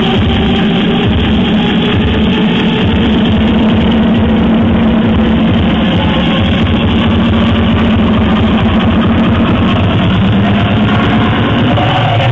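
Loud hardstyle electronic dance music with a heavy, pulsing bass and a long held low note.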